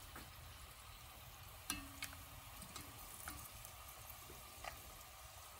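Cubes of sweet potato frying in canola oil in a Dutch oven: a faint, steady sizzle. A few light clicks come as a spoon tips more cubes into the pot.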